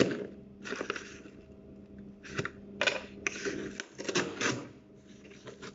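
Cardboard box being opened by hand: flaps bending and rubbing, with rustling and crinkling as a plastic-wrapped item inside is handled, in irregular short bursts.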